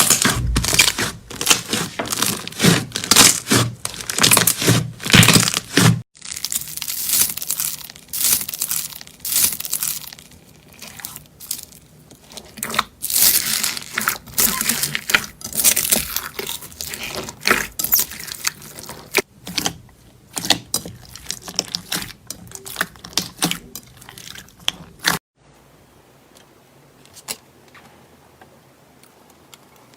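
Slime being squeezed and worked by hand, giving dense crackling and popping clicks. The sound changes abruptly twice as one clip gives way to the next, and near the end it becomes much quieter and sparser.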